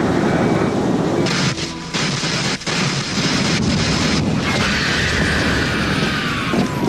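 Loud, booming science-fiction sound effect of the boat jumping between worlds: a dense rushing noise with a few brief breaks, then a steadily falling whine that starts about two-thirds of the way in.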